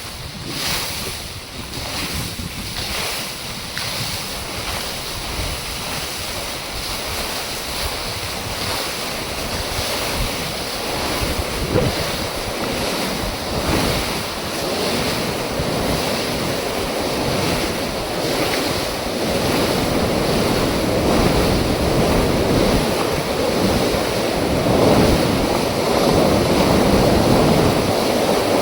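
Water rushing through an opening dam flap gate: a steady roar that grows gradually louder and fuller through the second half.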